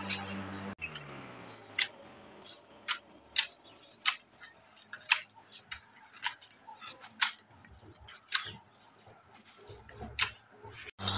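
A series of sharp, irregularly spaced clicks, roughly one or two a second, over a quiet background; a steady hum cuts off about a second in.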